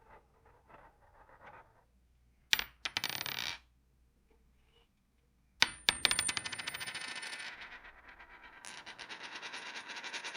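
A series of metal coin sound effects. First come a few faint light clinks. At about two and a half seconds a coin drops with a sharp strike and clatters for about a second. At about five and a half seconds another coin drops sharply and goes into a long fast rattle with a high ring, which fades and then picks up again near the end.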